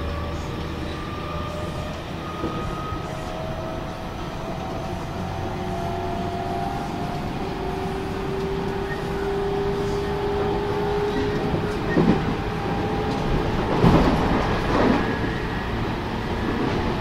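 JR Central 313 series electric motor car's traction motors and inverter whining under the floor, the tones climbing slowly in pitch as the train picks up speed after leaving a station. Near the end the wheels clatter over rail joints in a few sharp knocks.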